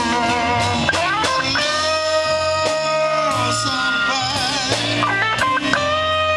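Live blues band playing, led by an electric guitar solo: a note bent up about a second in and held long, then notes shaken with vibrato, over bass and drums.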